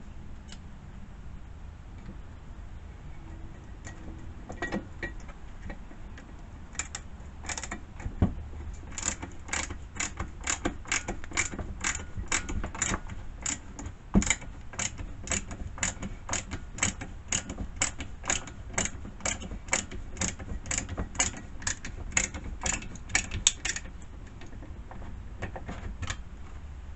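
Ratchet wrench clicking in an even rhythm of about two clicks a second, starting about nine seconds in and stopping shortly before the end, after a few scattered clicks.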